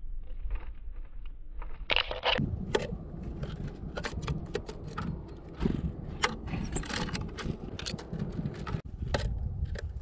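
Blue tits and great tits pecking and scrabbling at seeds on a wooden feeder tray: a rapid, irregular run of sharp taps, clicks and scrapes, with a brief louder rustle about two seconds in, over a low rumble.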